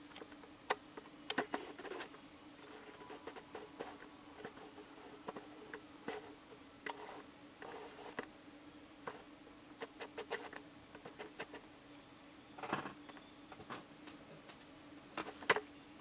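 Camera lens focus ring being turned in small nudges, giving irregular soft clicks and ticks, some in quick clusters, over a faint steady hum.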